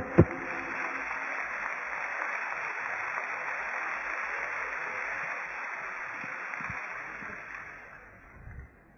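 Live audience reacting with a steady crowd noise that fades out over the last two seconds.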